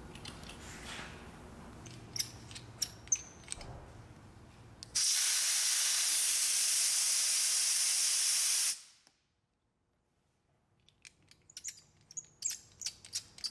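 Air rushing out of an off-road tire through an Apex RPV rapid air-down valve stem with its pull tab open: a loud, steady hiss of about four seconds that stops abruptly. Small light clicks come before it and again near the end, as the valve and its tab are handled.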